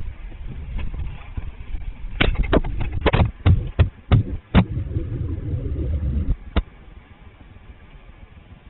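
Handling noise on a camera: about eight sharp knocks and taps in quick succession, then one more a little later, over a low rumble that drops away suddenly about six seconds in.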